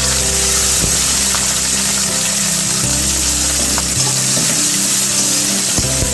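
Chopped onions frying in hot mustard oil in a kadai: a steady, loud sizzle.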